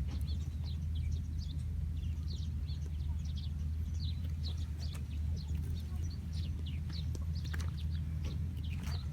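Small birds chirping, many short notes falling in pitch, repeated throughout over a steady low hum.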